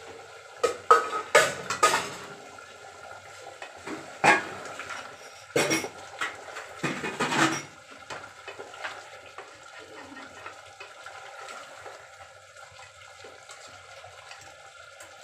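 Metal ladle clanking and scraping against an aluminium cooking pot while chicken curry is stirred, with metal pot tongs gripping the rim. There are bursts of loud clanks in the first two seconds, again around four seconds and from about five and a half to seven and a half seconds, then it goes quieter.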